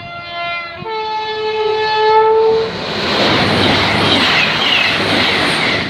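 Train horn sounding two tones, a short lower note and then a higher one held for about two seconds, as a fast passenger train approaches. The train then passes close by at speed with a loud, steady rush of wheels and air.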